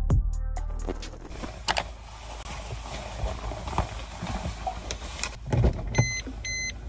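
Background music cuts off in the first second, giving way to the inside of a car cabin: a steady low hum with clothing rustling and soft knocks as a jacket is pulled on. About six seconds in, a car's warning chime starts beeping about twice a second.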